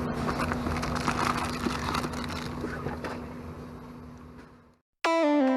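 Steady hum inside a parked airliner's cabin, fading out to silence over about five seconds. Near the end, electronic music starts with a short run of stepping, falling synthesizer notes.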